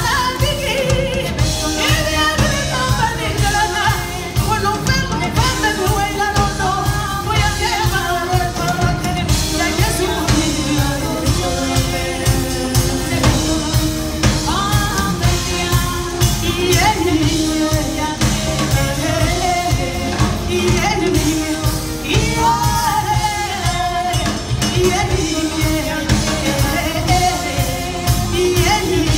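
Live band performing Malian-rooted music: a woman sings the lead over a drum kit keeping a steady beat.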